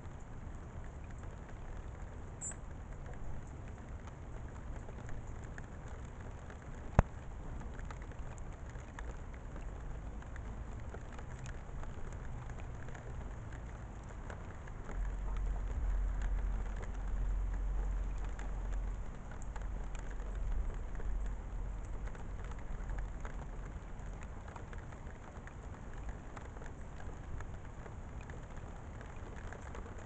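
Steady crackling hiss of the outdoor background through a trail camera's microphone, with a low rumble swelling for several seconds from about halfway and one sharp click about seven seconds in. No bird calls.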